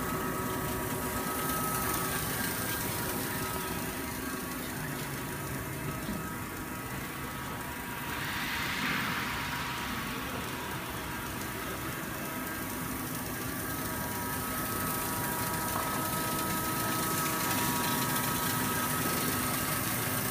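1000 W fiber laser cutting machine running while cutting 10 mm mild steel: a steady mechanical hum with several thin whining tones, and a hiss that swells and fades about eight to ten seconds in.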